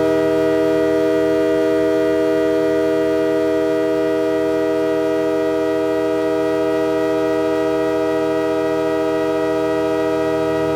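Soma Labs Lyra-8 analog drone synthesizer holding a dense, steady drone chord, many sustained tones layered over a rough low rumble.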